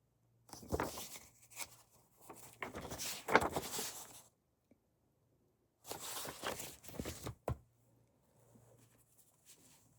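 Comic books being handled and shuffled: three rustling spells of paper and covers being moved, each lasting one to two seconds.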